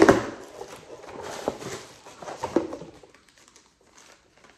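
A parcel being opened by hand: packaging rustling and crinkling with a few sharp knocks, the loudest right at the start. It goes nearly quiet after about three seconds.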